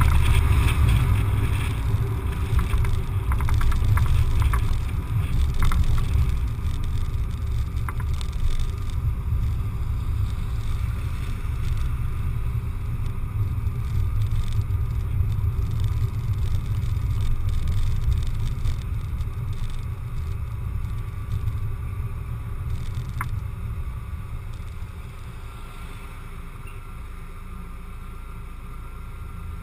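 A car driving on a town road, heard as a steady low rumble of road noise and wind on the microphone. The rumble dies down over a few seconds near the end as the car slows to a stop.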